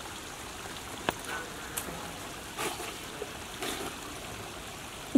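Steady rush of running water, like a small stream, with a sharp click about a second in and a few faint rustles.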